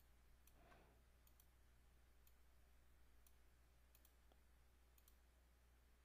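Near silence: faint room hum with a scattering of faint, irregular computer mouse clicks.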